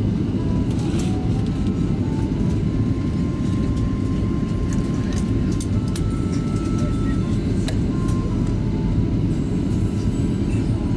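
Airliner cabin noise in flight: a steady low rush of engine and airflow, with a few faint clicks.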